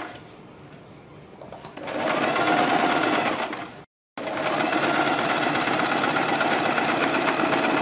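Electric domestic sewing machine stitching through cotton kurti fabric and a buckram neck facing. It stops at the very start, starts again about two seconds in, and cuts out for a moment about four seconds in before running steadily through the rest.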